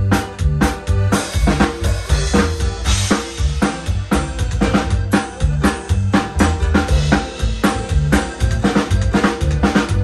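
Band music for dancing: a drum kit keeps a quick, steady beat on bass drum and snare over a bass line and other held instrument tones.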